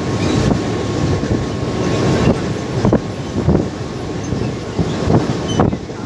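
Train running over a railway bridge, heard from aboard: the wheels make a steady rumble on the rails, with a series of clacks from about two seconds in.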